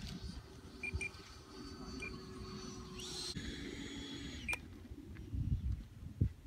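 Faint, high, thin whine of an electric ducted-fan RC model jet, the FMS BAE Hawk, climbing away, with wind buffeting the microphone.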